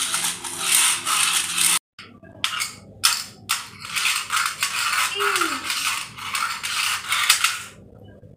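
A toy car shoved back and forth across a tile floor, its wheels and gears giving a rapid ratcheting whir in pulses. It breaks off a few times between about two and three and a half seconds in and stops just before the end.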